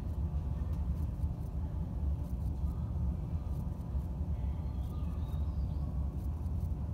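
Steady low rumble heard inside a stopped double-deck passenger railcar, the hum of the car's own running equipment, with faint scattered ticks.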